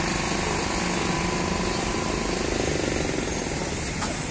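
A vehicle engine running steadily, a low, even rumble with a faint hum.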